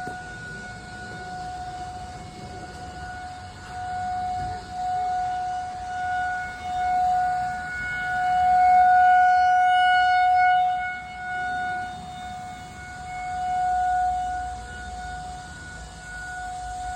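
Outdoor tornado warning siren sounding one steady, unchanging pitch. Its loudness swells and fades again and again, and it is loudest about halfway through.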